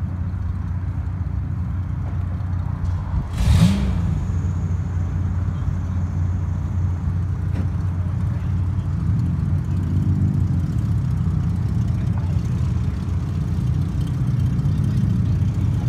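Car engines running as a steady low rumble, rising briefly in pitch around ten seconds in, with one short loud burst about three and a half seconds in.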